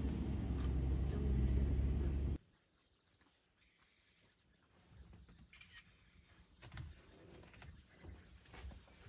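Low steady rumble of a safari vehicle's engine running. It cuts off abruptly a little over two seconds in, leaving faint bush ambience with light rustles and clicks.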